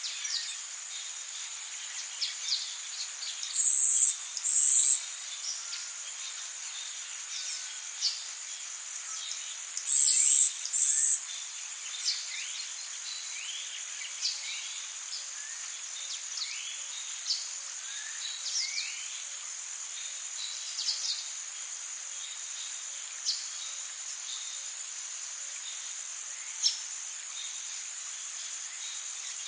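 Tropical rainforest ambience: a steady high insect drone with many short bird chirps and whistles throughout. Two pairs of loud, high buzzing calls come a few seconds in and again about ten seconds in.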